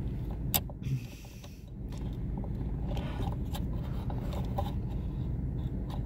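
Small clicks and scraping from hands working a plastic brake pedal position sensor (brake light switch) into place at the brake pedal bracket, with one sharp click about half a second in, over a steady low hum.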